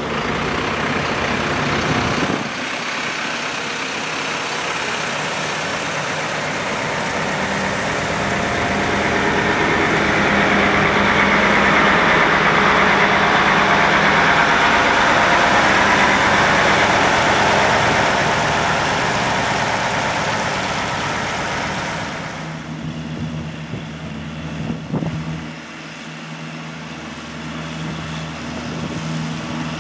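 Engines of the vehicles in a helicopter tow convoy, a truck and tow tractors, running past at walking pace. A broad engine-and-road noise swells to its loudest in the middle and drops off after about two-thirds, leaving the steadier hum of a tow tractor's engine.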